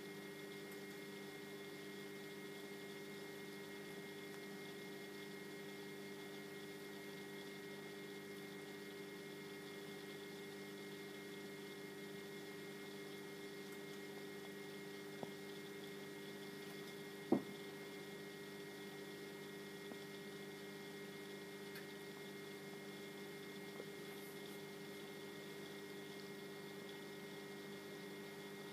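Steady electrical hum of running reef-aquarium equipment, with one short click about seventeen seconds in.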